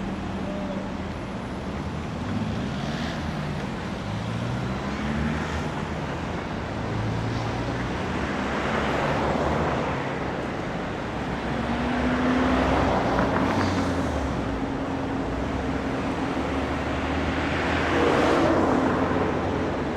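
Runaway motorboat circling at speed with no one in control, its engine drone rising and falling in pitch as it swings towards and away.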